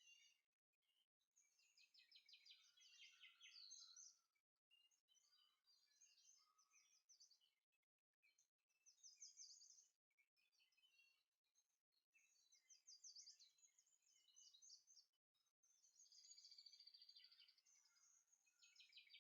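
Faint songbird chirping: repeated quick trills and twittering phrases, coming in bursts with short pauses between them.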